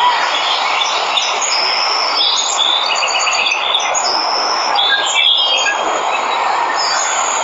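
Steady rush of a waterfall with jungle birds chirping and trilling high over it, a cluster of short calls in the middle.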